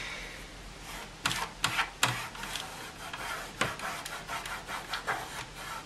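Tissue rubbing on the plastic keyboard case: a soft scratchy wiping noise, with a few sharp clicks and knocks as the case is handled.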